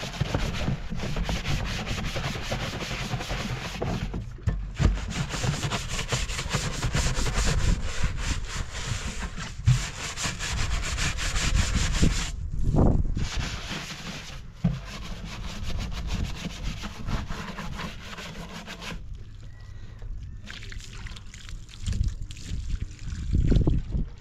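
Rasping, rubbing strokes in quick succession, of hand work on a hard surface. It thins out and grows quieter about nineteen seconds in.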